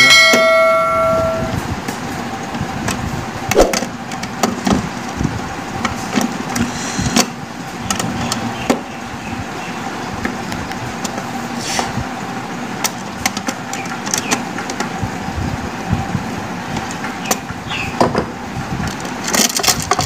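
Screwdriver turning the small metal screws of a plastic switch-and-socket board cover, with scattered clicks and scrapes over steady background noise. A short ringing chime sounds at the very start.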